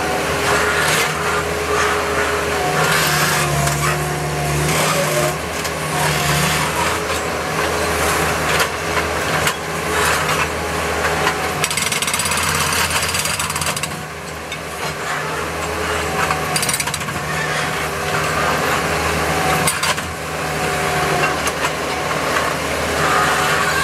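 Hydraulic breaker on a Bobcat skid-steer loader hammering concrete in rapid blows, over the loader's steady engine, with a couple of brief pauses.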